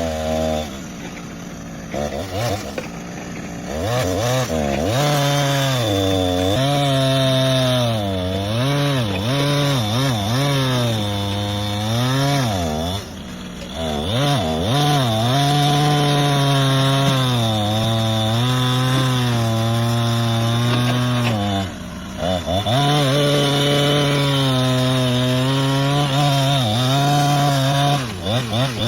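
Two-stroke chainsaw running at high revs under load, its engine pitch sagging and recovering as the chain bites into the wood. It eases off toward idle briefly a few times: early on, around thirteen seconds in, around twenty-two seconds in, and near the end.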